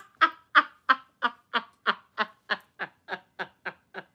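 A woman laughing hard into a bundle of cards held over her mouth, in a run of short breathy pulses about three a second that slowly fade.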